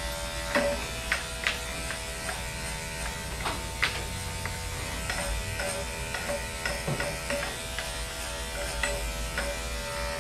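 Electric dog-grooming clipper running steadily as it shaves a dog's coat, with a few sharp ticks in the first four seconds.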